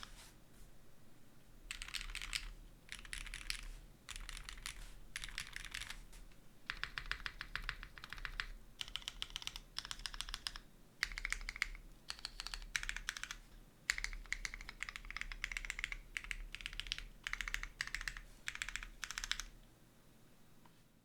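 Mechanical keyboard with lubed Gateron CJ linear switches on a polycarbonate plate and GMK doubleshot keycaps: keys hammered in rapid bursts of clacks, each about a second long with short pauses between, stopping shortly before the end.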